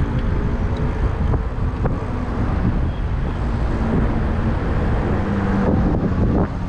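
Wind rumbling over a handlebar-mounted GoPro's microphone while riding a SUPER73 RX e-bike, with tyre and road noise and a faint low hum that comes and goes.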